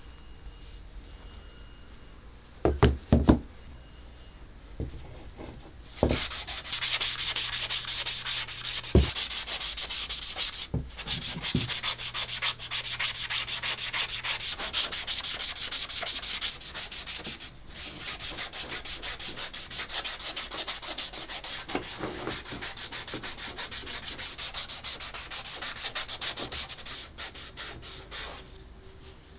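Hand sanding of a plywood turntable plinth with a sanding sponge: a fast, continuous scratchy rubbing of short strokes that starts about six seconds in and stops just before the end. A few knocks come about three seconds in, as the board is handled on the bench.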